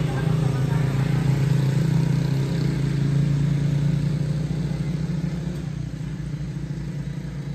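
A motor vehicle's engine running steadily, its low, pulsing sound fading gradually over the last few seconds.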